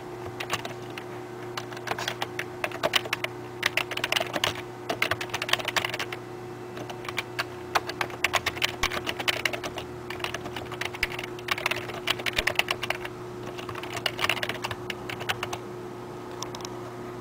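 Typing on a computer keyboard: runs of quick key clicks with short pauses between them, over a steady electrical hum.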